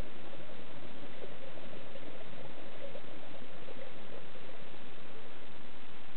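Scuba diver's exhaled bubbles from a regulator, heard underwater through the camera housing over a steady hiss. The bubbling lasts about four seconds, then fades.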